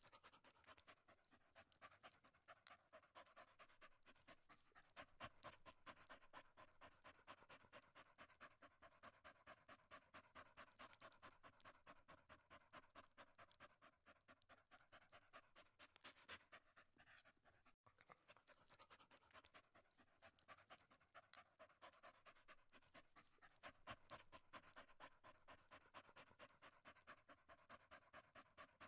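A dog panting faintly in a quick, steady rhythm.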